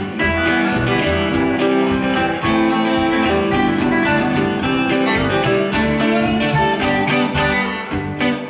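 A small live band plays an instrumental break of a country-style song: electric guitars over bass notes in a steady rhythm, with no singing.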